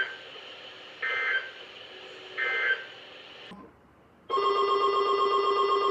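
Three short warbling data bursts about a second and a half apart: the Emergency Alert System end-of-message tones that close a weather-radio flash flood warning. After a moment of silence, a loud, steady electronic ringing tone of several pitches starts about four seconds in.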